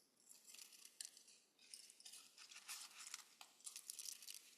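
Scissors snipping through crepe paper: a quick, faint run of cutting strokes.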